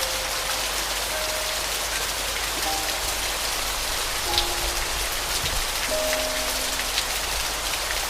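Steady rain falling, with scattered drops ticking through the hiss, under a slow, sparse piano melody of single held notes a second or more apart.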